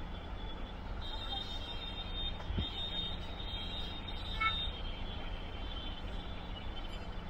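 Steady low rumble and hiss of a busy roadside deep-frying stall, with a single knock about two and a half seconds in.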